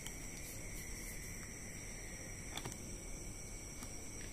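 Faint steady high-pitched whine in the background, with a few light clicks and taps of parts and a tool being handled.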